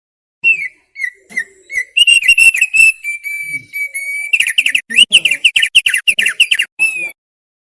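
Thick-billed heleia (opior paruh tebal) singing a loud whistled phrase. A few short clear notes lead into held whistles, which break after about four seconds into a fast run of sharp notes, about six a second, that stops abruptly.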